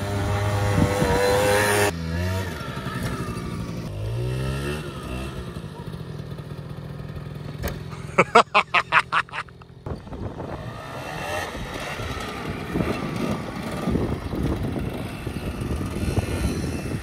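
Small youth quad bike's engine running and revving, its pitch rising as it speeds up. About eight seconds in, a rapid run of loud thumps, about five a second, lasts a second and a half.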